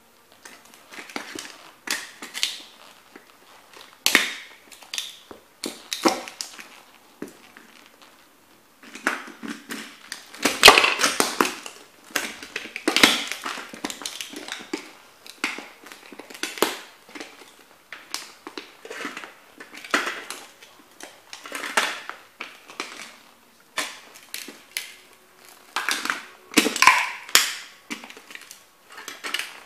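A vintage model toy Corvette crushed and ground under heavy combat-boot soles against a board: repeated crunching and scraping of breaking plastic and metal in uneven bursts every second or two, loudest about a third of the way in.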